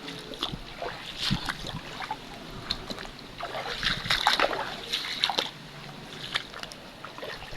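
Floodwater splashing and sloshing in irregular bursts.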